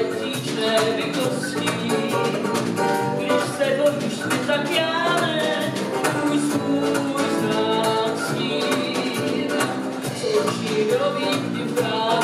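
Live jazz band: a woman singing into a microphone over electric bass guitar and drums, with cymbals ticking throughout.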